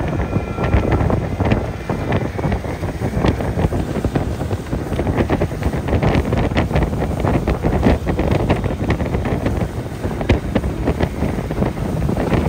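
Wind buffeting the microphone on a speeding motorboat, over the rushing of its churning wake and the boat's engine, with frequent sharp crackles.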